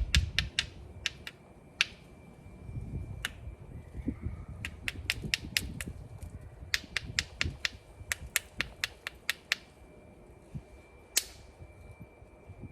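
Obsidian being knapped into a stone tool: runs of quick, sharp taps, several a second, in bursts with short pauses, and one loud single strike near the end.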